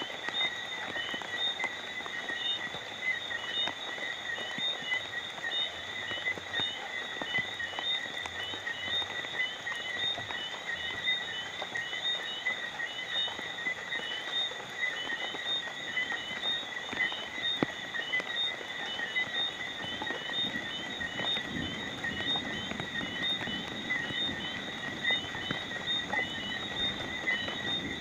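Steady rain falling, with scattered drop ticks, under a continuous high-pitched night chorus of calling animals: unbroken high trilling with rapid, regularly repeated chirps.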